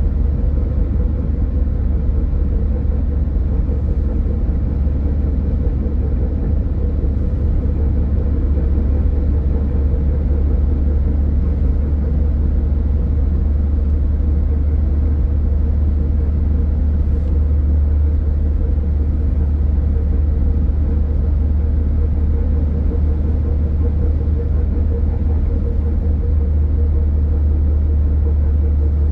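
Steady low rumble of a car driving along the road: engine and road noise with a steady hum above it, unchanging throughout.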